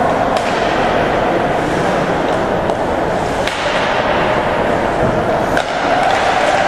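Ice hockey play in an indoor arena: a handful of sharp clacks of sticks and puck on the ice and boards, the sharpest about three and a half seconds in, over a steady hall din.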